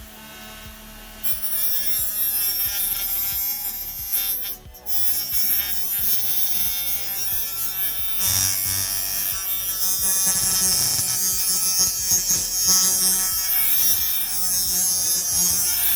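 Hard-drive spindle motor spinning a diamond-coated paper disc against a rock. A high grinding hiss over a motor whine starts about a second in and drops out briefly about a third of the way through.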